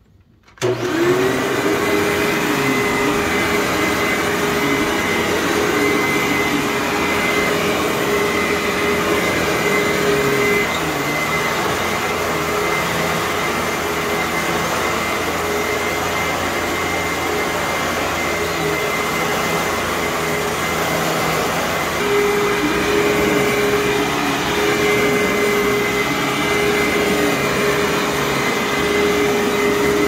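Hoover WindTunnel U5753-900 bagless upright vacuum cleaner (2007, 12-amp motor) switched on about half a second in, then running steadily on carpet. Its steady whine drops out for about ten seconds in the middle, while the machine stands upright, and returns near the end.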